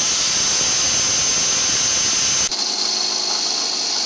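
Handheld electric grinder running steadily with a high whine over a body-filler-coated bumper cover. About two and a half seconds in, the sound changes abruptly to a slightly lower steady whine.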